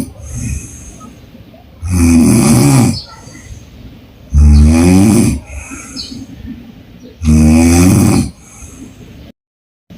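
A woman snoring loudly through an open mouth: three long rattling snores, each about a second long and evenly spaced, with quiet breathing between them. The audio cuts out completely for about half a second near the end.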